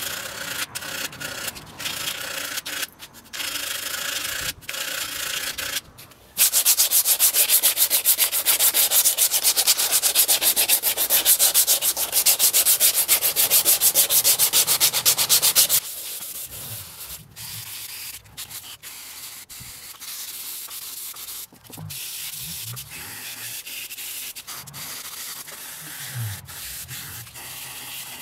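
Wooden spoon sanded by hand, its bowl rubbed back and forth on an abrasive mesh: scratchy strokes with short gaps at first, then fast, even and loudest from about six seconds in until about sixteen seconds, then lighter.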